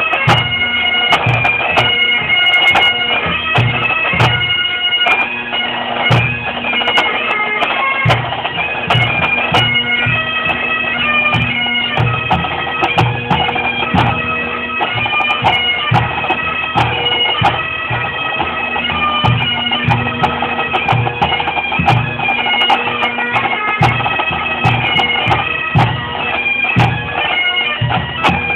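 Pipe band playing: Highland bagpipes sounding a steady drone under the chanter melody, with snare, tenor and bass drums beating along.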